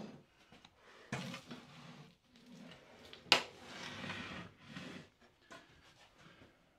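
3/4-inch plywood cabinet panels being handled and fitted together on a wooden workbench: irregular scraping, shuffling and knocking of wood on wood, with one sharp knock a little over three seconds in.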